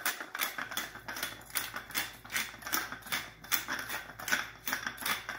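Hand-held pepper mill grinding black pepper: a steady run of crunching clicks, about four to five a second, as the grinder is twisted.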